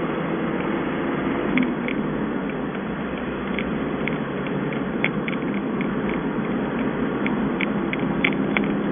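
Steady road and engine noise inside a moving vehicle's cabin, picked up on a mobile phone, with small irregular clicks and rattles from about a second and a half in.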